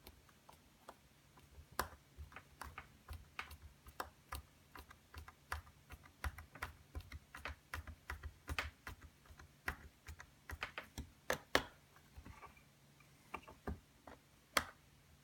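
Irregular light clicks and taps, a few a second, from small plastic case parts and tiny screws being handled and fitted.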